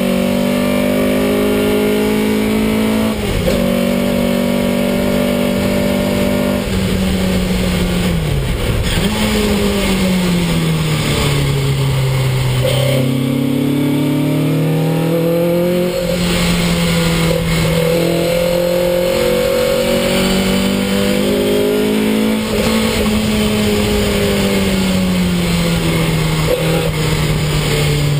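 Ford Anglia special saloon race car's engine running hard, heard from inside the stripped cockpit. Its pitch drops away for a long stretch about a third of the way in, climbs again in the middle, then eases down once more near the end as the car brakes, changes gear and accelerates through the corners.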